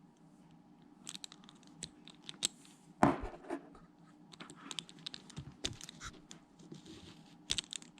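Nylon helmet chin strap being threaded and pulled through a plastic quick-release buckle: scattered scratching and rustling with light plastic clicks, and one sharper knock about three seconds in.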